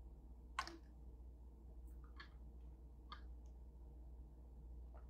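Near silence with a few faint, short clicks; the loudest comes about half a second in.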